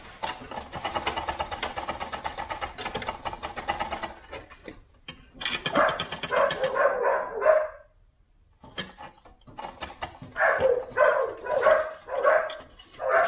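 A ratchet wrench clicking rapidly for about four seconds while bolts at the car's firewall are worked. It is followed by two short spells of a pitched, voice-like sound.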